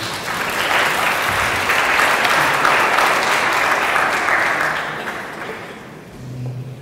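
Audience applauding, swelling over the first second, then fading out about five to six seconds in.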